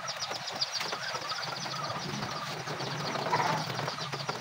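A rapid series of short, high-pitched chirps, many a second, fading out a little before the end, with a few light clicks and taps of parts being handled on a motorcycle's handlebar.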